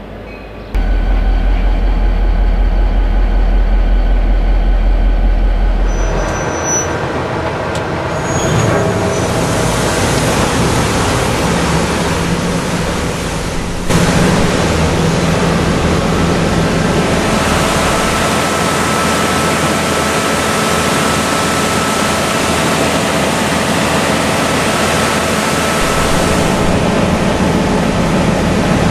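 A diesel locomotive pulling the Aqua Track high-pressure water rail-cleaning unit: a deep engine rumble starts about a second in. After a few seconds it gives way to the steady hiss of the high-pressure water jets and blowers washing the railheads, with a faint steady whine later on.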